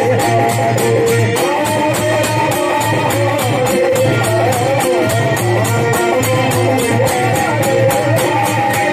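Live Holi kirtan folk music: a wavering melody line over a steady drone and a fast, even clinking percussion beat.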